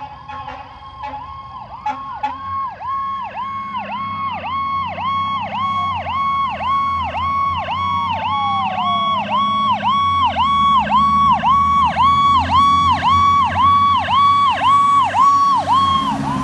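Fire engine's Federal Signal PowerCall electronic siren on a fast warble, cycling about twice a second and growing louder as the truck approaches. A slower siren tone glides up and then down during the first half, and the engine's low rumble runs underneath. The siren stops near the end as the truck passes.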